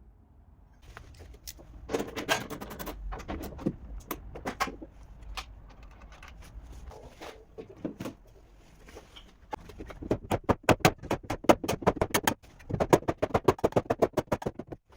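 Quick, light tapping of a paintless-dent-repair tap-down tool and hammer on a car body panel. Scattered taps give way to fast runs of several a second in the last five seconds.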